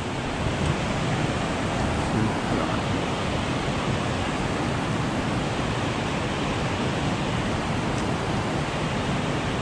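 Rushing whitewater pouring from a dam outflow into a fast creek: a steady, even rush of water.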